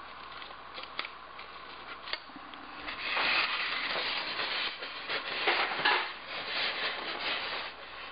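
Rubbing and rustling handling noise with a few light clicks, quiet at first and louder from about three seconds in.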